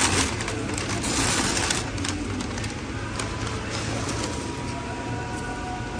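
A brown paper takeout bag rustling and crinkling as it is pulled open and handled, loudest at the start and again about a second in, over a steady low hum.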